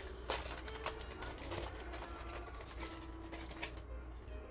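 A run of light, quick clicks and taps from handling a laptop and its small parts, thinning out and stopping near the end.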